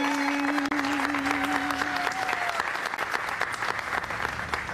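Small audience applauding while a woman's voice holds the last note of a song; the held note fades out about two and a half seconds in, and the clapping carries on.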